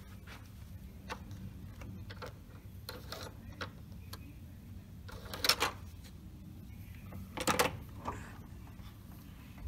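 Hotel room door's key-card lock being worked: small clicks as the card goes into the slot, then two louder clacks about halfway through and about three-quarters through as the lock releases and the lever handle is worked.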